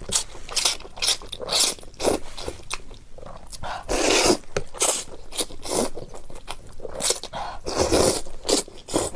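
Close-up slurping of spicy wide noodles out of chili broth, a string of long, noisy sucks with wet chewing in between.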